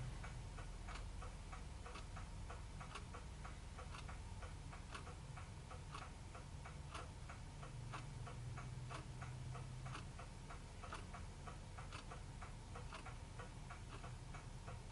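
A clock ticking steadily and faintly, about two ticks a second, over a faint low hum.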